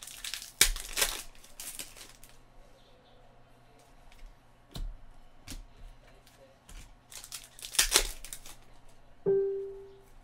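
Foil trading-card pack wrappers crinkling and tearing open while cards are handled, in several short rustling bursts, the loudest near the start and again late on. Near the end, a brief steady hum-like tone lasts under a second.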